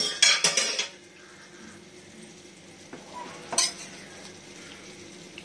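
Metal slotted spatula stirring cooked rice in a pressure cooker pot, scraping and clinking against the pot's sides. There is a burst of scraping in the first second and a single sharp clink about three and a half seconds in.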